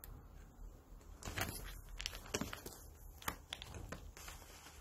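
Rustling and soft irregular knocks as two cats scuffle on a person's lap, paws scrabbling against clothing.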